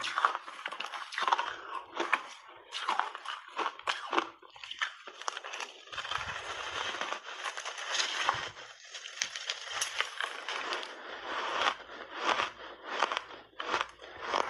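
Crunchy chunks of ice, coated in matcha and milk powder, being bitten and chewed close to a clip-on microphone: irregular sharp crunches, running together into continuous grinding chewing in the middle.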